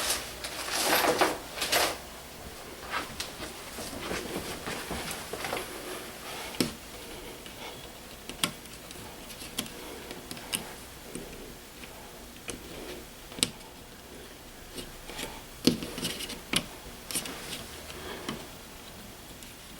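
Irregular small clicks, taps and scrapes of thermostat wiring being handled and pushed into a wall-mounted base, with a louder rustling scrape in the first couple of seconds.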